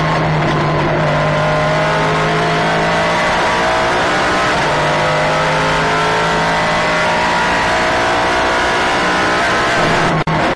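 Nissan GT-R race car's engine and drivetrain running hard at speed, heard from inside the cockpit as a loud, steady note whose pitch drifts slowly up and down. The sound drops out briefly near the end.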